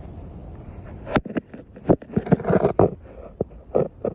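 Handling noise of a camera knocking and scraping against the rim and inside wall of an open 4-inch cast-iron drain pipe: a run of sharp knocks and scrapes starting about a second in, over a steady low rush.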